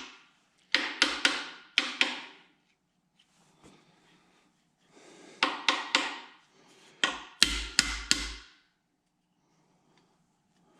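Hammer tapping a tight-fitting part down into place on a Farmall Super C tractor engine's crankcase. The blows come in three quick runs of three to five sharp taps, and the last run lands heavier.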